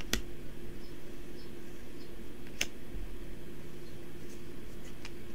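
Yu-Gi-Oh trading cards being handled and swapped between the fingers: two sharp clicks about two and a half seconds apart and faint light ticks, over a steady low hum.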